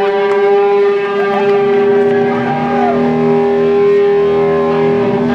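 Electric guitar ringing out in amplifier feedback: a loud, steady drone of held tones, with a couple of short wavering bends in pitch about a second and two and a half seconds in.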